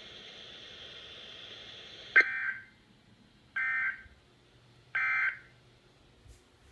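NOAA Weather Radio broadcast: a faint steady hiss, then three short bursts of digital data tones about 1.4 s apart. These are the EAS/SAME end-of-message code that closes the Required Weekly Test.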